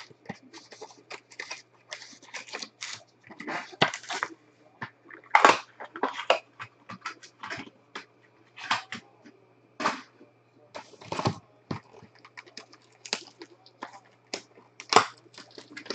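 Clear plastic wrap crinkling and cardboard rustling as hands unwrap and open a Bowman Chrome hobby box of trading cards, in irregular crackles.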